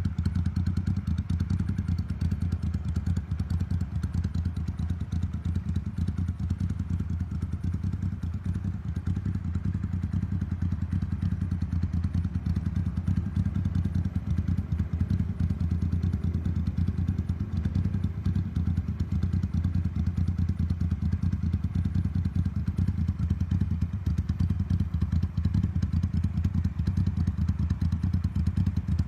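Motorcycle engine idling steadily on an aftermarket Mikuni TM40 carburettor.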